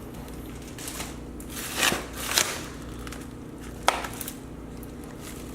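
Packaged groceries being handled: plastic packaging rustles twice about two seconds in, and there is a single sharp tap a little before four seconds, an item set down on the counter.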